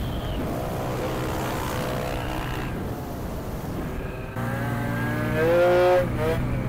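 Small motorcycle engines running on the move at a steady pitch. About four seconds in a louder engine cuts in and revs up and down, its pitch rising and then falling and rising again.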